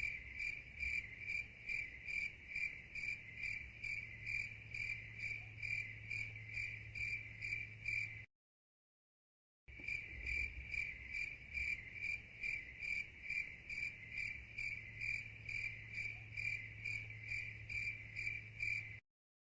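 Cricket chirping in a steady, high-pitched rhythm of about two to three chirps a second. The sound cuts out completely for over a second about eight seconds in, then resumes, and stops again just before the end.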